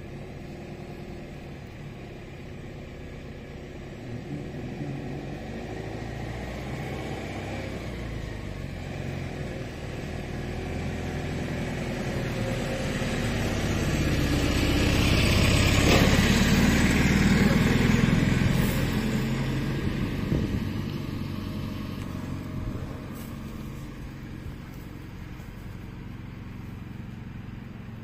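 A motor vehicle's engine gradually getting louder, loudest a little past the middle, then fading away as the vehicle passes by.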